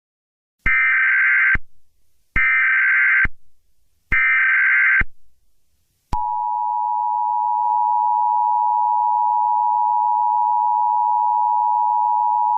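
Emergency Alert System signal: three short bursts of SAME digital header data, each just under a second long, then the steady two-tone EAS attention signal starting about six seconds in, announcing an incoming alert.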